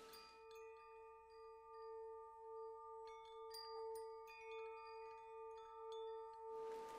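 Soft background music: a held, gently pulsing tone under steady higher tones and scattered chime notes.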